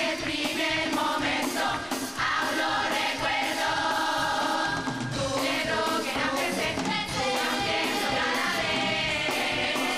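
A Canarian carnival murga chorus of women singing together, backed by a drum kit with cymbals keeping a steady beat.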